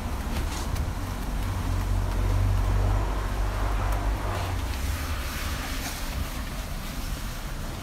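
A low steady rumble, swelling for a second or so about two seconds in, under the soft swishing of a wash mitt rubbing over soapy car paint.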